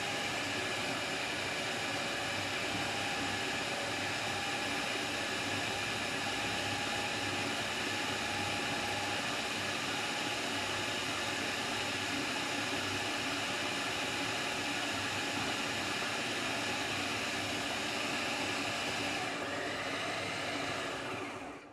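Anex AG-3150 food processor's motor running steadily at speed, its chopping blade mincing raw chicken into fine keema. The motor is switched off near the end.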